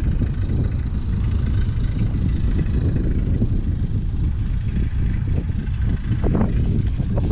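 JCB Fastrac 4220's 6.6-litre six-cylinder diesel engine idling steadily, heard close up.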